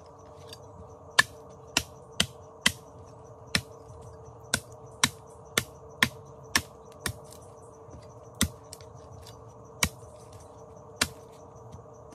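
A machete striking a bamboo stake in a series of sharp knocks, about fourteen, unevenly spaced, roughly one every half second to second and a half. A steady hum sits underneath.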